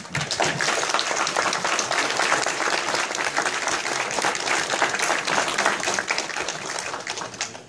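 Audience applauding: many hands clapping in a dense, even stream that starts suddenly and dies away near the end.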